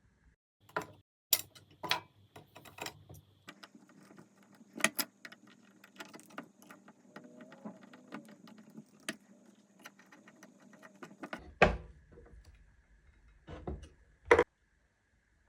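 Metal engine parts clinking and knocking as a two-stroke crankshaft is worked into its crankcase: irregular light clicks with a few sharper knocks, the loudest about twelve and fourteen seconds in.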